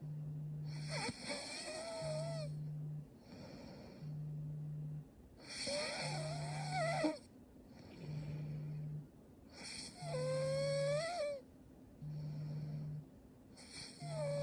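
A young woman snoring in her sleep, one wheezy, whistling snore about every four seconds. Under it a low steady hum switches on and off about once a second.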